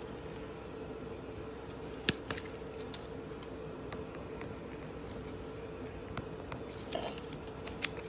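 Pokémon cards being handled: a few light clicks and a brief rustle about seven seconds in, over a steady faint hum.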